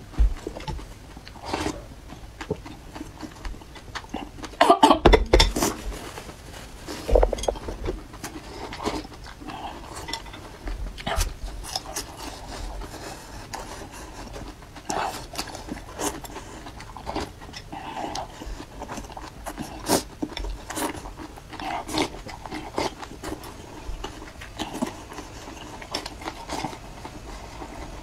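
Close-miked mukbang eating sounds from bowls of very spicy chili-oil soup: irregular slurps, mouth smacks and chopsticks clicking on porcelain bowls, with breaths blown out through pursed lips. A louder burst of these sounds comes about five seconds in.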